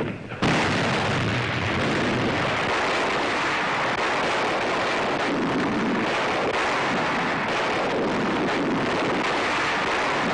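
Sustained din of a battleship's anti-aircraft guns firing together on an old newsreel soundtrack. A sharp blast at the start gives way about half a second in to a dense, steady roar in which single shots do not stand out.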